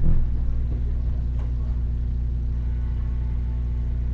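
A steady low hum, with a soft knock at the start and a faint click about one and a half seconds in.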